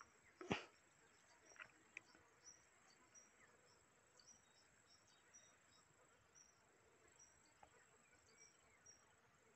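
Faint insect chorus: a steady high drone with short high chirps about twice a second. A single sharp knock sounds about half a second in.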